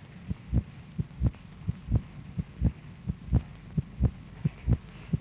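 Human heart sounds picked up by a microphone on the chest and played back aloud: a regular heartbeat of paired thumps (lub-dub), about seven beats, over a steady low hum.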